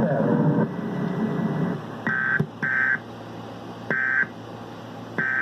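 Emergency Alert System end-of-message data tones: four short electronic tone bursts, each about a third of a second, starting about two seconds in. The first two come close together and the rest follow about a second apart, marking the close of a mock EAS test.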